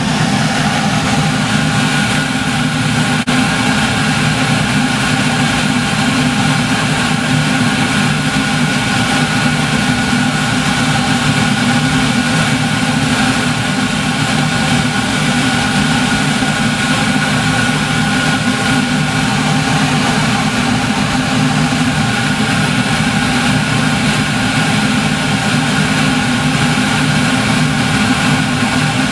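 Steady running noise of the Nihonkai sleeper train pulling out, heard in the conductor's compartment at an open window: a constant hum with a few steady tones over a deep rumble. There is a single sharp click about three seconds in.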